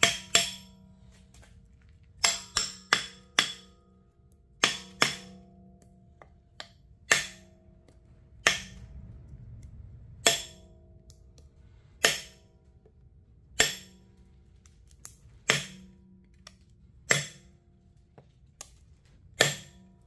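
Wooden rod knocking down through the hole in a cast refractory furnace lid, tapping out the form beneath. Sharp knocks with a brief ringing after each, several in quick succession early on, then about one every second and a half to two seconds.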